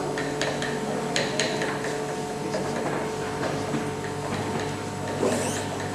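A utensil stirring in a small bowl, with a few short clicks and scrapes against the bowl in the first two seconds and one more near the end, over a steady background hum.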